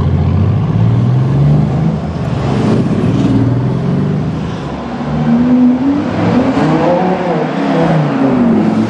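Sports car engine revving and accelerating, its pitch climbing in repeated steps as if going up through the gears, then rising and falling several times in the second half.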